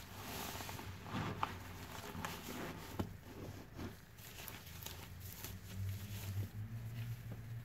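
Soap-soaked foam sponges squeezed and pressed by gloved hands, with wet squelching and crackling suds and scattered sharp clicks. A low hum grows stronger near the end.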